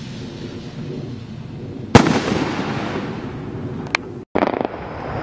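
Shots from the Myth And Mayhem firework cake bursting in the air: one sharp bang about two seconds in that echoes away, then a smaller crack and a short burst near the end.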